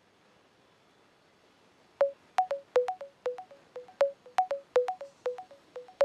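A quick run of short, sharp-edged notes, mostly on two alternating pitches, starting about two seconds in after near silence: a simple musical figure.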